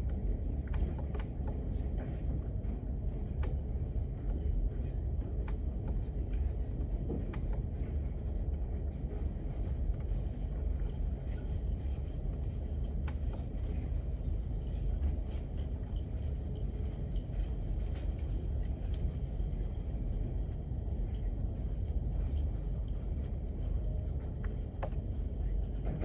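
Library study-room ambience: a steady low rumble of room background noise with scattered light clicks and taps throughout.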